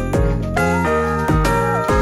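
Upbeat background music with a steady beat and a bright melody.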